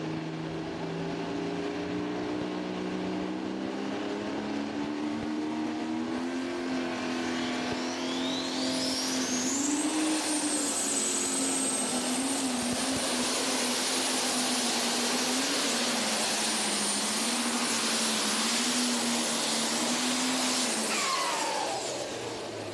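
Case IH super stock diesel pulling tractor with a turbocharged engine under full load on a pull. The engine pitch climbs steadily for the first several seconds. A high turbo whistle then rises sharply about eight to ten seconds in and holds at the top as the engine runs flat out. Near the end the engine and the whistle drop away together as the run ends.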